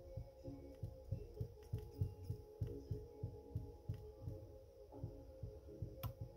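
Soft low thumps, about three or four a second, as thread is wrapped round and round a fly hook held in a tying vise, over a faint steady hum.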